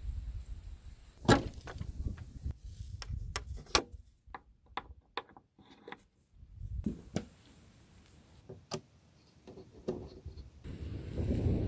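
Sharp clicks and knocks of hands working fittings on a wooden OSB panel in a van: a leather strap's metal snap buttons pressed shut and the panel's hardware handled. One loud knock comes about a second in, then two runs of clicks with quiet between. Low wind rumble on the microphone is heard at the start and again near the end.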